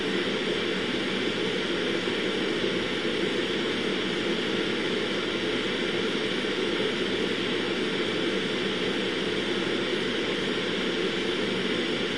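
Steady, even machine hum with no rises, breaks or clicks.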